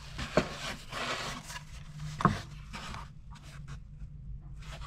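Handling noise from a soft fabric headset carrying case being turned over in the hands above an open cardboard box: rubbing and rustling, with two sharp knocks, one near the start and a louder one about two seconds in. Fainter light taps follow near the end.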